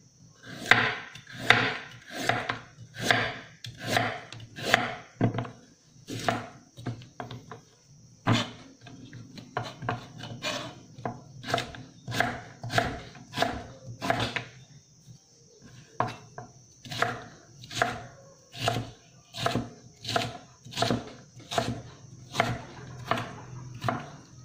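Kitchen knife chopping carrot on a wooden cutting board: a steady run of sharp knocks of the blade on the board, about one and a half to two a second, as the carrot is sliced and cut into small dice.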